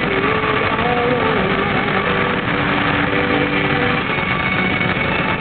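Steady road and wind noise of a car driving at highway speed. A few faint held tones that shift in pitch come and go over it.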